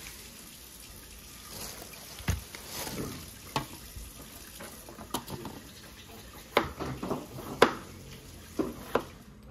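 Water running from a tap into a sink as hands are washed, with a few sharp clicks and knocks, two of them louder in the second half.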